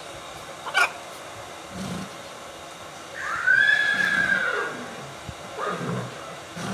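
A horse whinnying once, off-screen, about three seconds in: a high arching call of about a second and a half that falls away at the end. A short sharp click comes about a second in.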